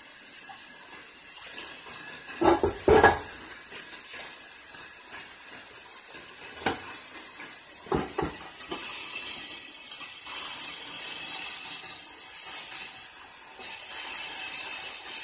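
Dishes and metal pots clattering in a kitchen sink while being washed. There is a quick cluster of knocks about two and a half seconds in, a single knock near the middle and two more about eight seconds in, over a steady hiss.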